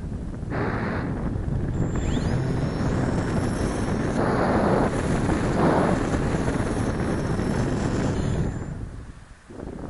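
Wind rushing over a wing-mounted camera's microphone on an electric RC glider in flight. About two seconds in, a faint high electric-motor whine rises in pitch and then holds steady. Near the end the whine stops and the rush of wind dies down sharply.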